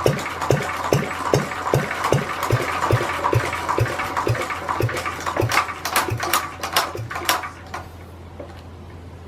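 Lister D 1.5 HP single-cylinder stationary engine running with a regular thumping beat and clatter. The beats slow and space out, then stop about seven and a half seconds in as the engine is shut down and coasts to a stop.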